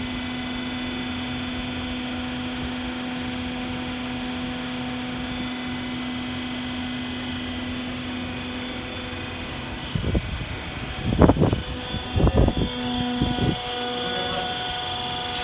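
Hydraulic pump unit running with a steady hum while it pressurises a freshly serviced lifeboat hydraulic cylinder on a workshop bench test. A few short, loud bursts of noise come about two-thirds of the way in, and the hum takes on extra, higher tones near the end.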